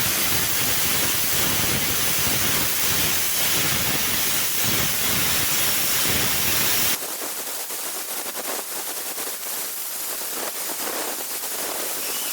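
Plasma cutter torch cutting through a steel pipe: a loud, steady hiss. About seven seconds in it cuts off abruptly, leaving a quieter, thinner hiss.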